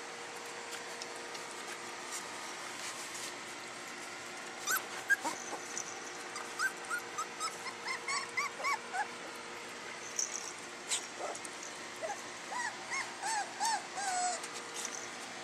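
Soft-coated wheaten terrier puppies whimpering: short, high, rising-and-falling whines, coming thick and fast from about five seconds in. A few sharp clicks come in among them.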